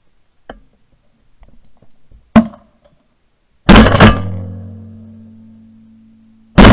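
Shotgun shots: one about two and a half seconds in, two in quick succession near four seconds, and another near the end. After the shots near four seconds and at the end, a low ringing hum lingers and slowly fades.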